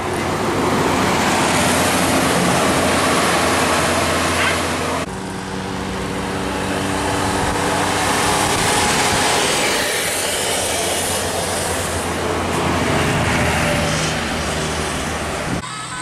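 Tour buses and a minibus driving past close by: engine and tyre noise with a steady low engine drone. The sound changes abruptly about five seconds in and again just before the end.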